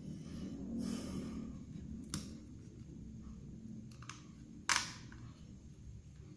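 Small hand tools working on a smartphone: a brief scrape about a second in, then sharp clicks about two seconds in and near five seconds in, the last the loudest, over a steady low hum.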